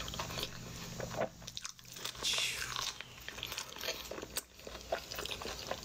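A person chewing an overstuffed mouthful of burrito, with many small wet mouth clicks. There is a loud breath through the nose about two seconds in.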